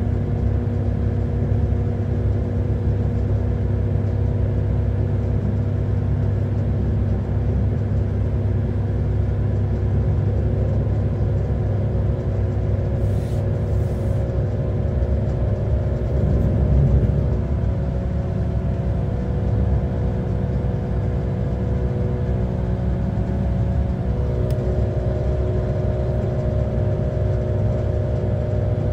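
Interior of a Pesa Link class 632 diesel railcar under way: the diesel engine hums steadily over a low rolling rumble, its note shifting about halfway through and again near the end, with a brief swell in loudness in the middle.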